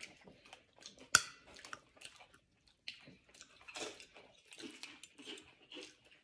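Chewing and crunching tortilla chips (nachos), with many small crackly crunches and one sharp click about a second in.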